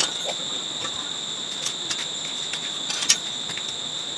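Short sharp clicks and knocks of metal parts and tools being handled, the loudest about three seconds in, over a steady high-pitched drone.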